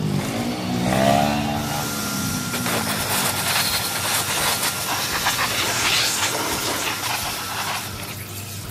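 A steady hissing rush, with a short wavering tone about a second in; it eases off near the end.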